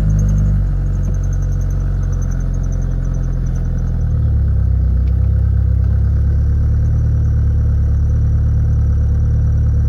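Eagle Talon's four-cylinder engine idling just after being started; the idle note shifts and then holds steady about four seconds in.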